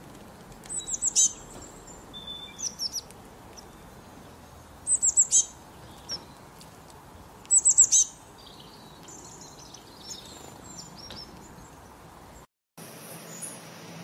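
A small songbird calling: clusters of four or five quick, high-pitched chirps that each slide downward, repeated every couple of seconds, then softer scattered chirps. Near the end the sound drops out for a moment and a different, steadier background comes in.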